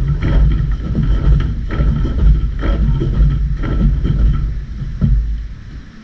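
Battle ropes whipped in waves, thudding in a steady rhythm of about one stroke a second over a heavy low rumble, then stopping near the end.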